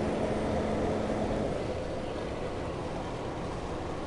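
Scania G380 truck's diesel engine running under way, heard inside the cab as a steady rumble. A steady hum in the engine note stops about a second and a half in, and the sound eases slightly.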